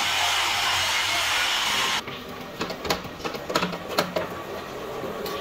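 A steady, loud hissing noise cuts off abruptly about two seconds in. It is followed by a run of sharp metallic clinks and knocks as the steel gear blank is handled in the three-jaw chuck of a milling machine's dividing head.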